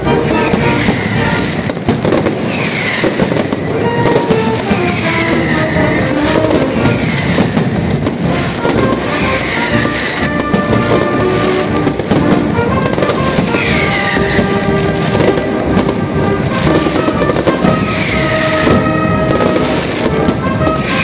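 Mascletà: a dense, unbroken barrage of firecracker bangs, with whistling fireworks sounding over it, many of them gliding down in pitch about every two seconds.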